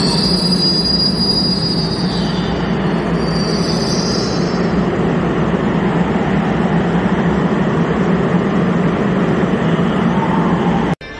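Korail Class 341000 electric multiple unit running past the platform: a steady heavy rumble of wheels on rail. A high squeal fades out in the first two seconds, and another high whine rises about three to four seconds in. The sound cuts off abruptly just before the end.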